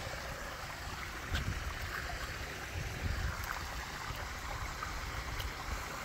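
Koi pond waterfall running with a steady rush of water, with a few faint ticks over it.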